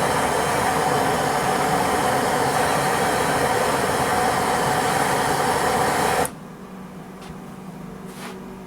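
MIG welder arc running in one steady burst as weld is laid into a bearing-worn groove on a mower-deck spindle, at a slowed wire speed; it cuts off about six seconds in, leaving a low hum.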